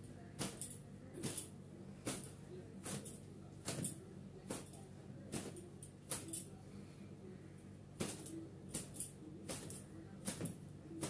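A thin cotton gamchha towel is whipped again and again against long hair to dry it: sharp swishing slaps, about one or two a second, with a short pause midway. A low steady hum runs underneath.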